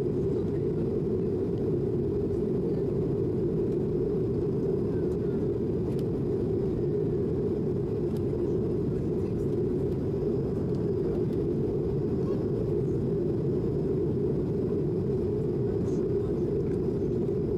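Steady low rumble of an Airbus A220's Pratt & Whitney geared turbofan engines and airflow, heard from inside the passenger cabin.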